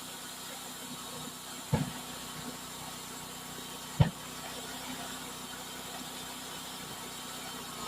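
Cook's HD3238 band sawmill's engine running steadily at idle, with two sharp knocks, the first about 1.7 seconds in and a louder one about two seconds later.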